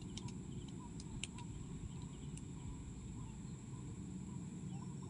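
Rural outdoor ambience: a low steady rumble, a steady high-pitched whine and small scattered chirping calls, with a few light clicks in the first second and a half and one more soon after.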